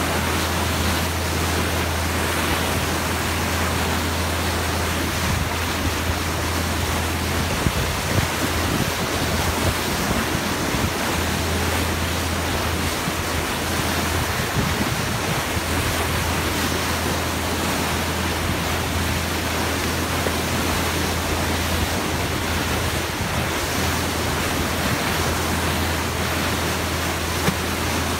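Seawater rushing and hissing in the bow wave of a moving boat, with wind buffeting the microphone and a steady low hum underneath.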